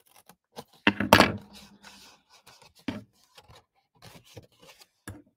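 Small craft scissors snipping into cardstock, with the card rustled and handled between cuts: a series of short sharp snips and scrapes, loudest about a second in.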